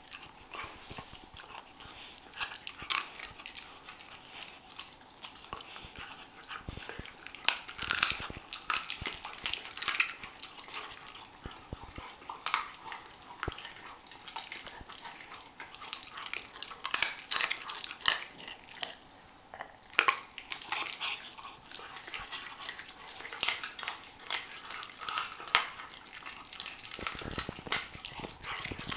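Weimaraner puppy chewing a raw chicken wing held in a hand: irregular wet crunching and clicking as its teeth work on the bone and skin, with a few louder crunches.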